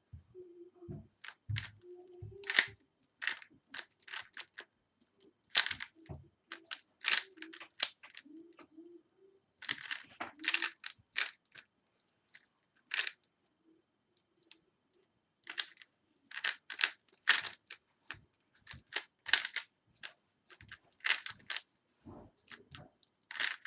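3x3 Rubik's cube being turned fast in a timed speedsolve: quick bursts of plastic clicking and clacking as the layers turn, broken by short pauses.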